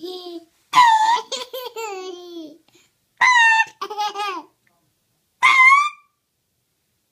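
A baby laughing and squealing in high-pitched bursts, with three main outbursts that rise and fall in pitch.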